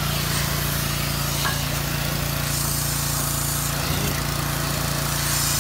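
Pressure washer running steadily, its motor humming under the hiss of the high-pressure water jet spraying against the boat and trailer.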